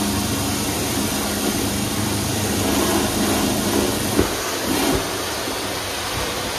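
A grout-cleaning machine runs steadily, a motor hum over a wide hiss of spray and suction. About four seconds in there is a sharp click, after which the hum drops away and mostly the hiss remains.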